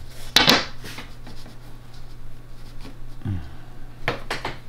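Handling noises from a wooden yardstick and pen being worked over upholstery fabric on a table: a short scrape about half a second in, then a few quick clicks and taps near the end.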